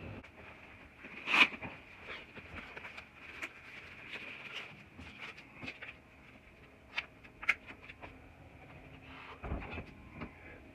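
Scattered small clicks and knocks of objects being handled, the loudest about a second and a half in, over a faint steady high hiss.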